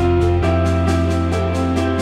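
Instrumental background music with a steady beat; the chord changes about half a second in.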